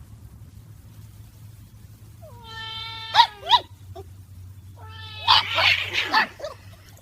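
A cat gives two long meowing calls, a couple of seconds apart. The first is followed by two short sharp sounds, and the second by about a second of loud, rough, hissing noise.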